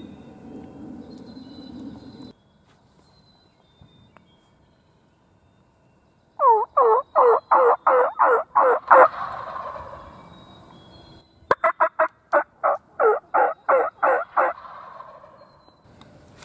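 Turkey yelping: two loud runs of about nine to eleven notes each, every note dropping in pitch, at about three to four notes a second, with a pause of a couple of seconds between the runs.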